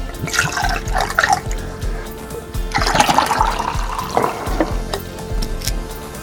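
A drink being poured, liquid splashing in two spells, over background music with a steady beat.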